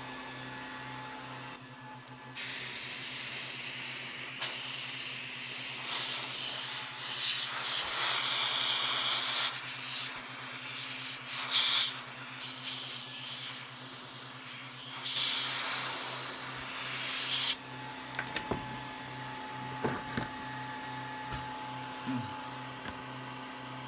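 Compressed air hissing from a pistol-grip air blow gun, blown over a freshly printed part to cool it. It starts suddenly about two seconds in, swells and eases, and cuts off abruptly after about fifteen seconds. A steady low hum runs underneath, with a few knocks near the end.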